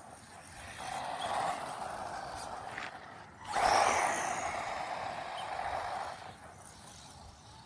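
A small 1:18-scale RC monster truck driving: its electric motor and tyres run in two surges, the second and louder starting about halfway through, then fade away.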